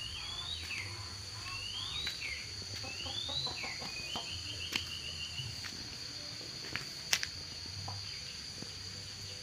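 A bird calling in three rising whistled phrases, then a short trill, over a steady high-pitched insect drone. Two sharp clicks come later, against a low rumble of camera handling.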